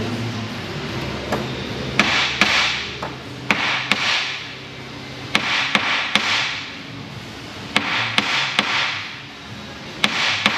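Hand hammer striking metal work on a workbench, sharp taps mostly in pairs, repeated about every two seconds, during the resealing of a hydraulic boom cylinder.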